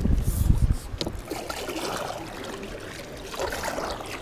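A low rumble for under a second, then quiet water lapping and trickling around a small rowed boat, with a single sharp click about a second in.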